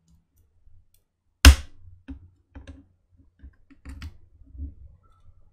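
Steel side cutters clicking and tapping against a MacBook Air's aluminium top case as a keyboard rivet is dug at and levered out. One sharp, loud click comes about a second and a half in, then a run of quieter clicks and taps.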